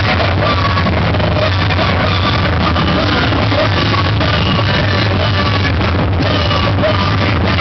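A live noise-rock band playing loud, dense, distorted music with yelled vocals, the sound steady and unbroken throughout.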